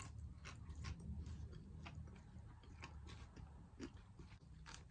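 Faint scattered clicks over a low steady hum.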